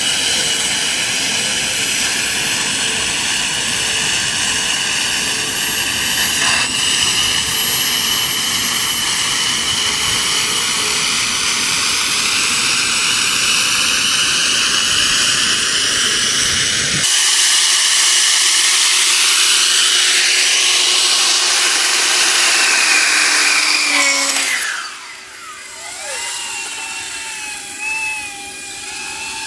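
Suction fan of a small wall-climbing robot running at high speed, a steady jet-like whine. The sound changes abruptly partway through. Near the end the pitch falls and it settles into a quieter, wavering whine.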